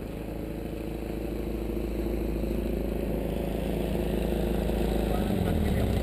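An engine running steadily and getting louder, with a change in pitch about five seconds in.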